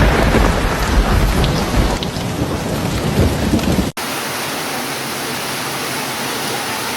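Heavy rain falling with a deep, rolling rumble of thunder. About four seconds in it cuts off abruptly to a steady, even rush of rain or running water with no thunder.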